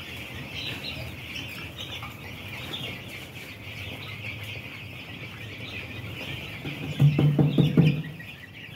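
Dense, continuous chorus of four-day-old broiler chicks peeping. About seven seconds in, a louder low-pitched sound cuts in for about a second.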